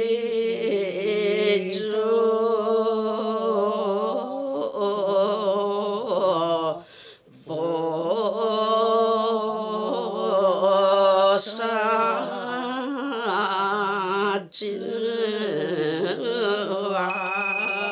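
An elderly woman singing a Buddhist hymn in long, drawn-out melodic lines with a wavering ornamented pitch, pausing briefly twice for breath. A small bell rings once near the end.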